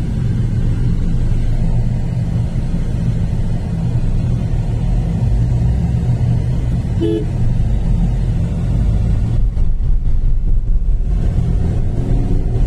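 Steady road vehicle rumble of an engine and tyres on the move, with a short horn toot about seven seconds in.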